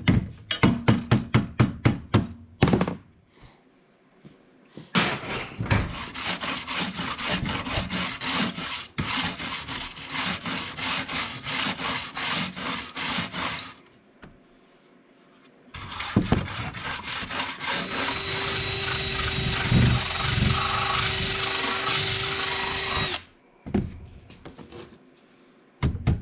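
A handheld power tool running in two long stretches, the second with a steady whine over it. This is workshop tool work while a leaking tractor radiator is being readied for an epoxy patch.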